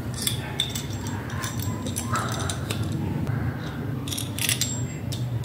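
Scattered clicks and light metallic clatter from a metal microphone boom arm and its table-clamp bracket being handled and adjusted, over a steady low hum.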